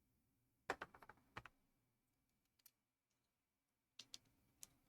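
ZURU MAX plastic building pieces clicking and snapping together as parts are fitted by hand: a quick cluster of clicks about a second in, one faint click midway, and a few more near the end.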